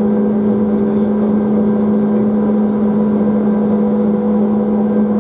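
Inside the cabin of a Tateyama Tunnel 8000-series electric trolleybus running at steady speed through the tunnel: a steady electric drive hum over an even running rumble.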